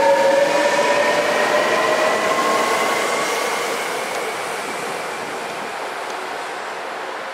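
Hankyu 1300 series electric train pulling away from the platform, its traction motors whining in a slowly rising pitch as it accelerates, over rolling wheel noise that fades as it moves off.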